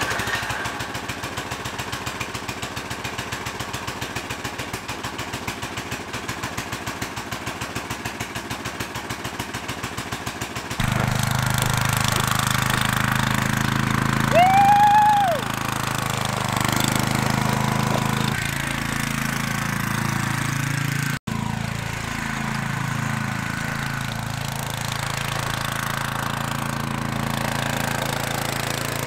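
Tecumseh 9 hp single-cylinder snowblower engine on a shopping-cart go-kart, running with an even rhythmic chug. About eleven seconds in it turns louder and steadier as the kart drives under load, with a short rising-and-falling high note partway through. The gearing is too tall for the kart, so the engine works hard and the clutch slips and burns.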